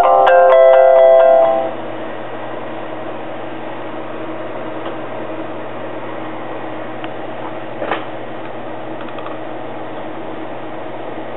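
Samsung Fascinate phone's startup jingle through its small speaker as it reboots: a quick run of chiming notes ending on a held chord that cuts off about a second and a half in. A steady hum and hiss follow, with a single click about eight seconds in.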